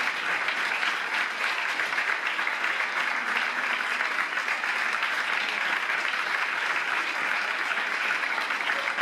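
Audience applauding, a steady dense clapping that holds at one level.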